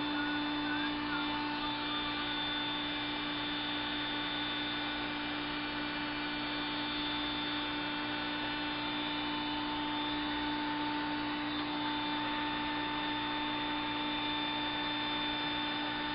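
Heat gun running steadily: an even electric hum with a thin high whine over it, the fan motor at a constant speed.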